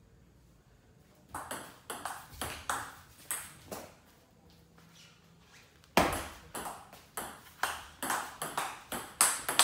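Table tennis ball clicking off the bats and the table in two rallies: a short exchange of about seven hits starting just over a second in, then a pause, then a faster rally from about six seconds in, at roughly three hits a second.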